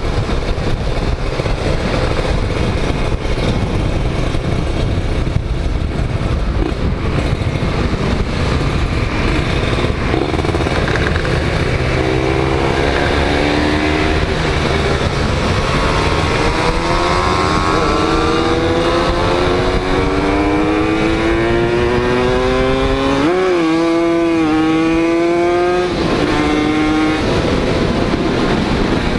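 Motorcycle engine, a Kawasaki Ninja 150 two-stroke single, running at road speed under a heavy rumble of wind on the microphone. From about halfway its pitch climbs steadily as it revs higher, then blips sharply and drops away near the end.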